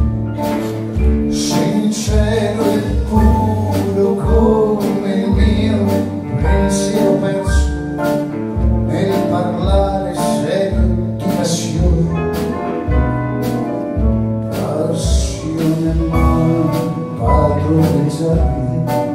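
A small band playing live while a man sings: a pulsing bass line under acoustic instruments, with regular cymbal strokes.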